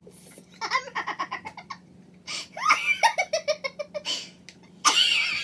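People laughing in several bouts of rapid, pulsing giggles, with the loudest burst near the end.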